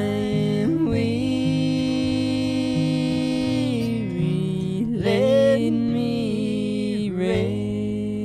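Acoustic guitar with a man's and a woman's voices singing in harmony, holding two long drawn-out notes on the slow closing line of a country ballad.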